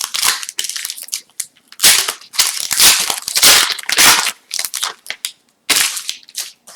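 Foil wrapper of an Upper Deck hockey card pack being torn open and crinkled: a run of loud crackling rustles.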